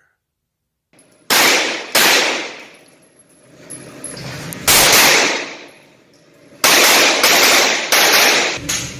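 Pistol gunshots, seven in all after about a second of silence: two close together, one alone, then four in quick succession. Each shot rings out with a long echoing tail.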